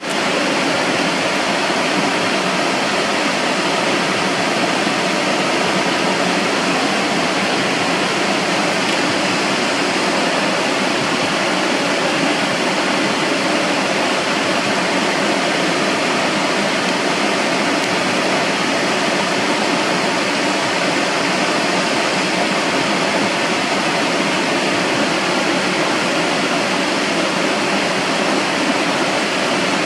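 Waterfall: water falling steadily in an even, unchanging rush.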